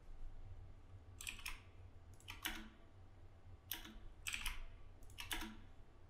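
Faint computer keyboard keys clicking, a handful of sharp clicks mostly in quick pairs, over a low steady hum.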